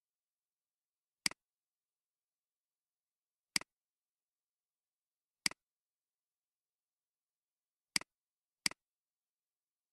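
Computer mouse clicks: five single, sharp clicks at uneven intervals, the last two less than a second apart.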